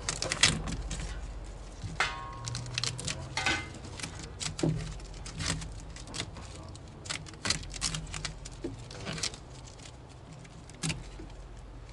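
Irregular clicks, taps and clinks of hand tools and small metal parts being handled while working on an air conditioner's refrigerant line set.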